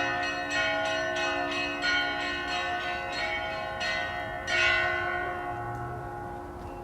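A set of church bells of several pitches ringing in quick strikes, two or three a second, for Easter. A loud strike comes about four and a half seconds in, then the ringing stops and the bells' tones fade away.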